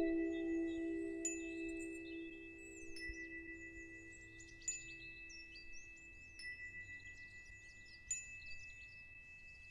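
Quiet ambient background music: a held chord fading away, with steady high tones and a few sparse, bell-like high notes.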